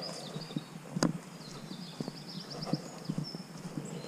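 Footsteps of a person walking on a dirt woodland path, about two steps a second, with one sharp snap about a second in. Birds chirp and trill high and thin in the background.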